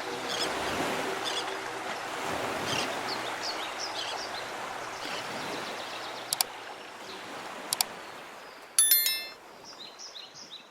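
Mountain stream running with small birds chirping over it, the sound slowly fading. Two quick pairs of clicks come in the second half, then a brief bright metallic ring about nine seconds in.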